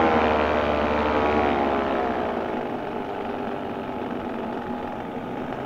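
Paramotor's two-stroke engine being throttled back in flight: its pitch falls over the first two seconds and it drops in level, then runs on lower and quieter.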